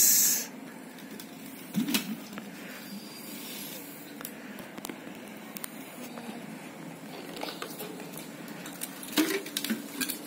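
Hands handling a ball of ice in water in a steel bowl: light wet squishes and scattered small clicks and knocks against the bowl.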